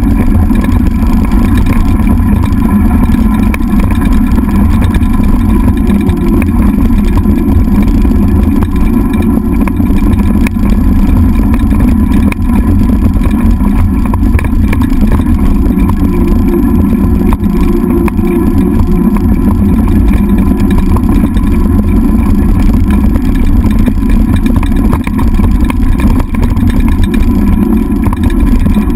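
Loud, steady rumble of a dog scooter rolling fast over a dirt and gravel road, with wind on a handlebar-mounted camera's microphone, and a faint steady whine over it.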